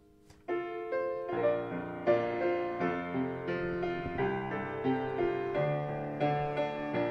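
Piano begins a slow worship-song introduction about half a second in, playing chords with a melody over them.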